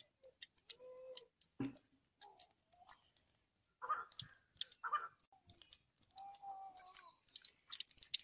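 Faint, scattered crackling clicks from a small wood cooking fire with a pan of oil heating on it, with a few short, faint pitched calls in between.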